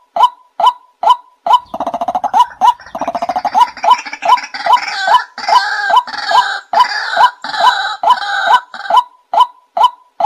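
White-breasted waterhen calling: a steady run of repeated 'wak' notes, about two to three a second. From about two seconds in, a fast stuttering rattle and then harsher, noisier calls break in, and the steady notes return near the end.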